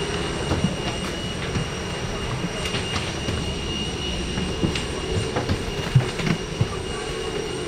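Steady machinery hum with a constant high whine inside a KC-135R's cargo cabin, with scattered light knocks and clatter from people moving about.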